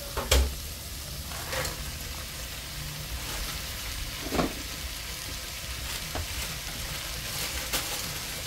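Frozen mixed vegetables tipped into a hot pan of sautéing bell peppers and red onion, sizzling steadily; the sizzle grows stronger partway through as the frozen pieces hit the hot pan. A loud knock sounds just after the start, and a few fainter knocks follow.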